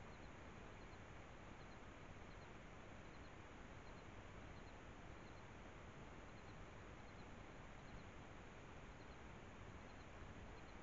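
Near silence: steady low hiss with a faint high double chirp repeating a little more than once a second.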